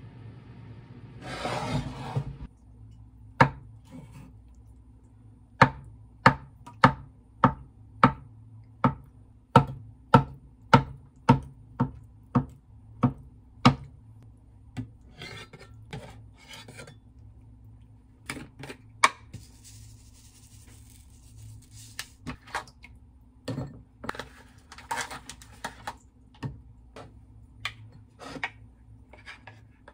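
Kitchen knife slicing a block of tofu, the blade tapping sharply on a wooden cutting board about twice a second. A short scrape comes about a second in, and lighter, scattered knocks and scrapes follow as the slices are handled.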